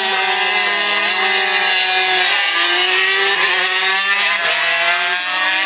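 MotoGP racing motorcycles running hard past, their engines rising in pitch through each gear and dropping back at each change, with more than one engine heard at once.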